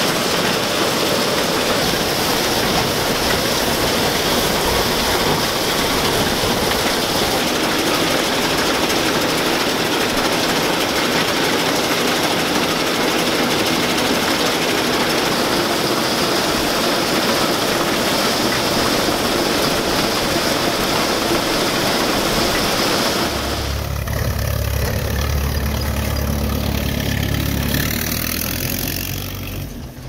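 Allis-Chalmers Gleaner M2 combine running as it harvests soybeans: a steady, dense noise of engine and threshing machinery. About 23 seconds in this gives way to a deeper, steadier engine sound with the hiss gone.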